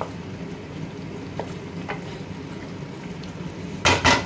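Chicken in masala gravy sizzling in an aluminium pot while a wooden spoon stirs it, with a few faint scrapes. Near the end, two loud knocks close together as the spoon is tapped against the pot.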